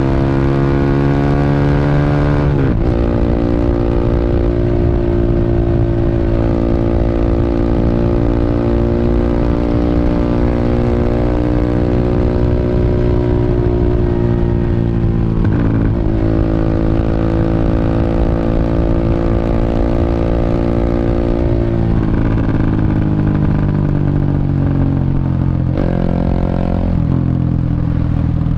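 Honda Revo motorcycle's single-cylinder four-stroke engine, bored up to 150cc, running through a CLD C7 aftermarket exhaust while riding. It holds fairly steady revs, with about four sharp brief dips in pitch (near 3 s, 16 s, 22 s and 26 s) that then pick back up.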